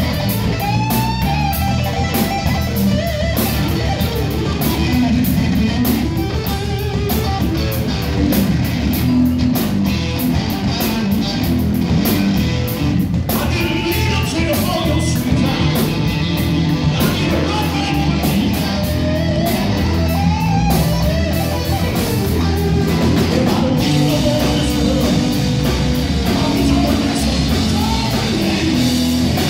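Live electric blues-rock band playing: distorted electric guitars, bass and a Gretsch drum kit with steady cymbal strokes, and a man singing at times.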